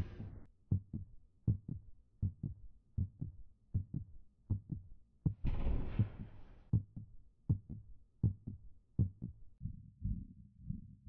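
Heartbeat sound effect: paired low lub-dub thumps repeating steadily at about 80 beats a minute. A brief rushing hiss comes in about five and a half seconds in.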